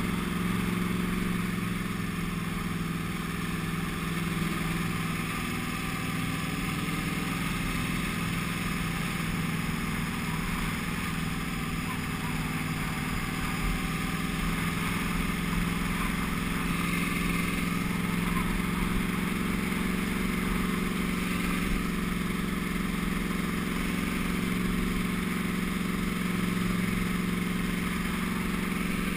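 Sport motorcycle engine running at a steady pitch under light load, with steady wind and road noise.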